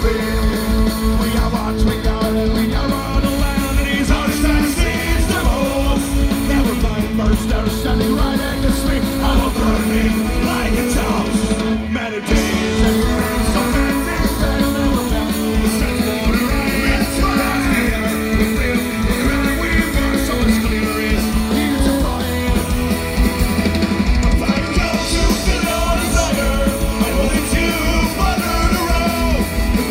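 Live rock band with fiddle playing a song with singing: vocals over electric and acoustic guitars, fiddle, bass and drums. The band drops out briefly about twelve seconds in, then plays on.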